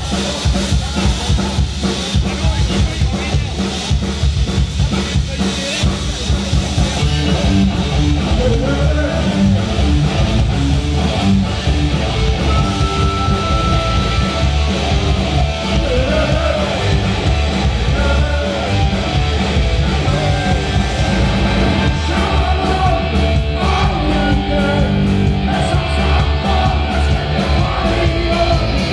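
Live punk rock band playing loud: distorted electric guitars, bass and a drum kit driving a steady beat, with a male singer's voice in places.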